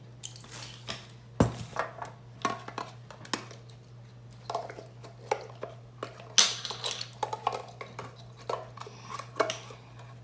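Measuring spoons and containers clinking and tapping against a bowl and the counter as salt and pepper are measured in, with a sharp knock about a second and a half in and a louder clatter about six and a half seconds in. A steady low hum runs underneath.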